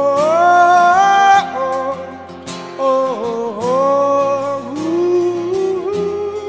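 Live acoustic music: a man sings long held notes that slide and step in pitch, with no clear words, over acoustic guitar. The voice comes in three drawn-out phrases.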